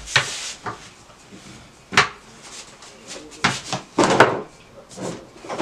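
Wooden rolling pin rolling out thin pizza dough on a floured metal baking tray, with several sharp knocks and clatters as the pin and tray bump. The loudest come about two seconds in and around four seconds in.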